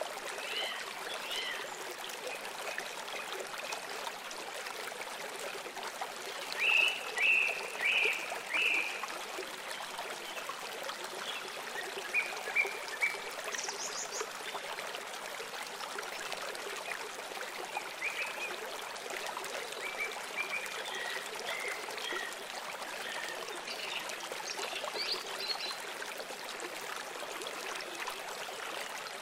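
Steady sound of flowing water with birds chirping over it at intervals; the loudest chirps come in a short run about seven to nine seconds in.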